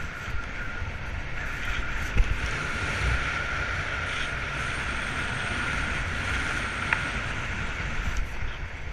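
Wind rushing steadily over the microphone of a speedrider's action camera as it moves fast over the snow, with a sharp knock about two seconds in.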